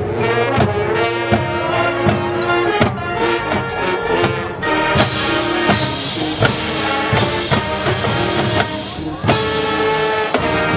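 Marching band playing: brass winds holding chords over regular drum strokes, swelling into a fuller, brighter passage about halfway through before easing back near the end.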